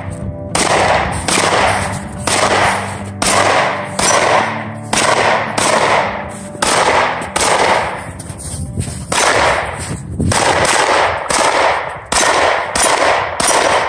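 A Polymer80-frame Glock 17-style 9mm pistol fired in a long, steady string of about two shots a second. Each shot is sharp and trails off over about half a second.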